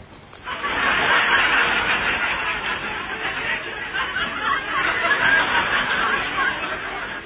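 People laughing, starting about half a second in and going on without a break.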